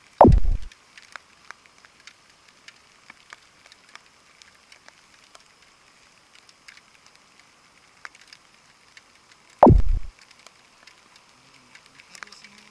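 Two short, loud sounds sliding steeply down in pitch, about nine and a half seconds apart, typical of an edited-in falling-tone sound effect. Between them a faint steady hiss with small scattered clicks as a hook, line and worm bait are handled.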